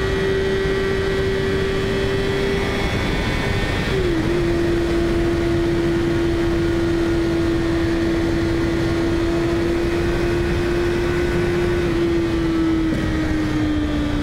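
2008 Kawasaki ZX-6R inline-four engine running hard at high revs in a low gear inside a road tunnel. Its pitch holds nearly steady, with a brief dip about four seconds in, over a steady rush of wind noise.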